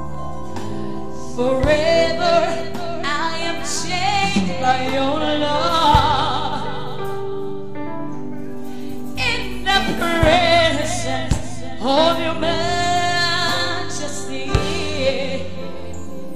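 Live gospel worship music: a woman sings two long phrases with wavering, ornamented pitch into a microphone, over sustained backing chords and a few drum hits, with a short break in the singing near the middle.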